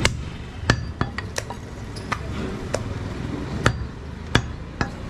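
A large butcher's knife knocking against a wooden chopping block while cutting up a goat leg: about eight sharp, uneven knocks, roughly one every half second to second.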